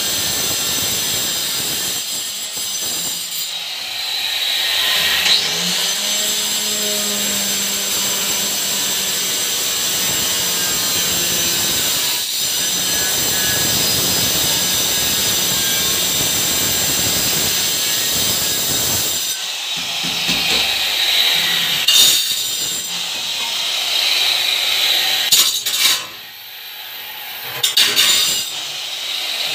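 Handheld electric tile cutter running at high speed, its blade grinding through a large ceramic wall tile with a steady high whine. Near the end the sound drops away briefly and then returns for further short cuts.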